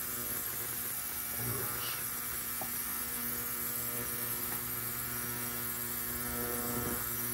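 Steady electrical mains hum with a faint hiss, and a few faint small clicks.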